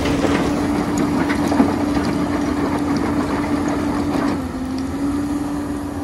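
Excavator screening bucket at work: soil and small stone pouring through the mesh with a dense rattling hiss, over the steady hum of the running Hyundai excavator. A little past four seconds the rattle thins and the hum drops slightly in pitch.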